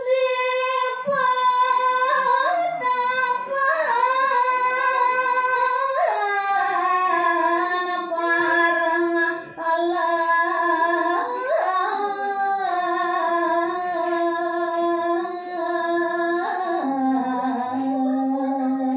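A woman singing a Balinese tembang verse in pupuh sinom, solo without instruments. She holds long drawn-out notes with small ornamental turns, and the melody settles lower near the end.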